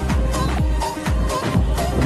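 Upbeat electronic dance music with a steady kick drum at a little over two beats a second, a bright hi-hat pattern and a high synth melody.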